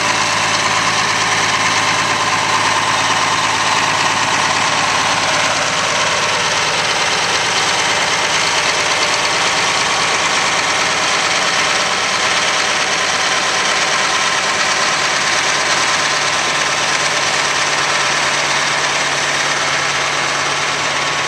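John Deere 4560 tractor's six-cylinder turbo diesel running steadily as the tractor drives slowly across the grass.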